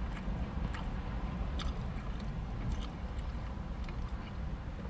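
A man chewing a mouthful of a fried-chicken-and-glazed-doughnut sandwich, with a few faint clicks from the eating, over a steady low hum inside a car.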